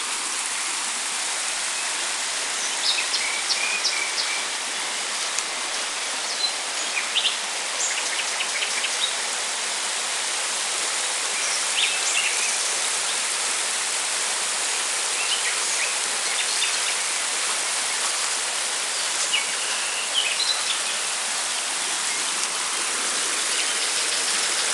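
Shallow, rocky river rushing steadily over stones, with small birds chirping now and then above the water noise.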